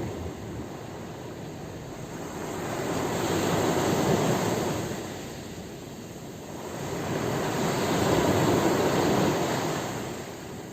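Sea waves breaking and washing in: two surges that swell and fade, about four seconds apart.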